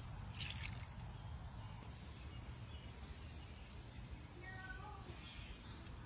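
Faint room noise with a steady low hum, a few soft clicks about half a second in, and a short high squeak about four and a half seconds in.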